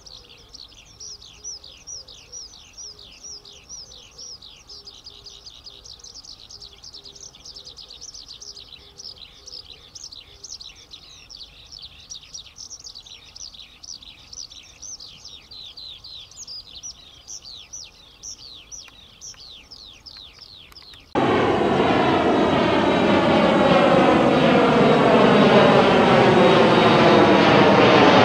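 A bird chirping in a quick, continuous run of high notes that each fall in pitch. About twenty seconds in, it cuts abruptly to the loud, steady sound of a jet airliner's engines overhead, an Embraer 170's turbofans, with pitch lines that slide slowly downward.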